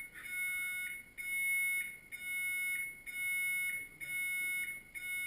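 Smoke alarm sounding, a shrill electronic beep repeated about once a second with short gaps between, set off by smoke from a chromium trioxide fire experiment.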